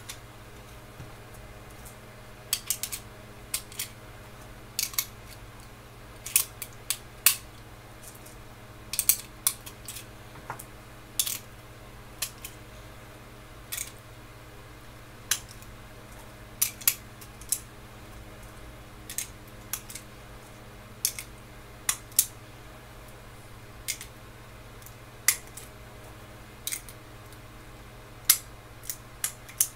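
9mm cartridges being pushed one at a time into a pistol magazine through a Makershot speedloader: sharp metallic clicks every second or two, some in quick pairs, as each round snaps into the magazine.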